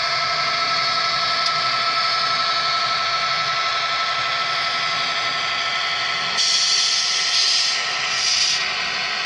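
Model freight train of hopper wagons running past, a steady mechanical drone with held tones over a haze of hiss. Two short bursts of hiss come in about six and a half and eight seconds in.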